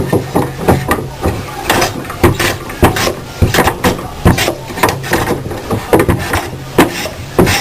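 Chips-making machine running, with sharp clacking knocks about twice a second over a low hum.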